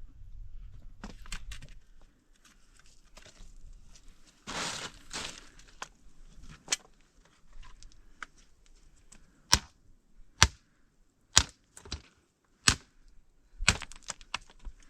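Firewood being broken up: a few rustling, crunching sounds and a louder scraping stretch about a third of the way in, then five sharp wooden cracks about a second apart in the second half.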